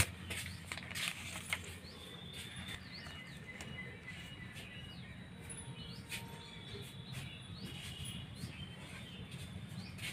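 Faint scattered taps and rustles of a smartphone and its plastic wrap being handled in gloved hands, over a low steady hum, with faint high chirps in the background.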